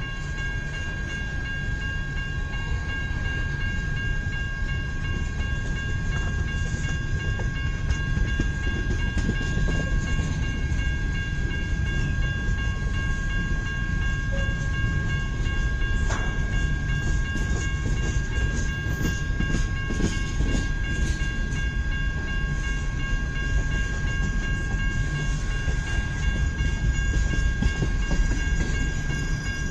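Freight cars of a long grain train rolling past, a steady rumble with clicks from the wheels crossing rail joints and a few steady high-pitched tones held over it.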